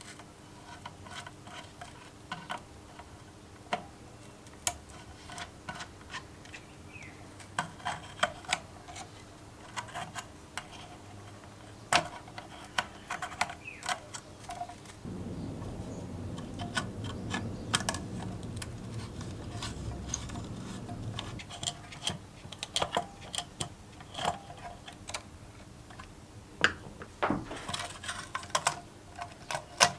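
Small metal parts and hand tools clicking, tapping and clinking at irregular intervals. A steadier low noise runs for about six seconds in the middle.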